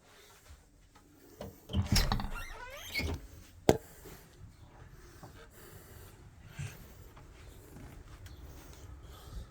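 A loud, high squeak with a wavering pitch lasting about a second, a couple of seconds in, followed by a single sharp click, against low handling noise: parts squeaking as they rub while a bed is taken apart.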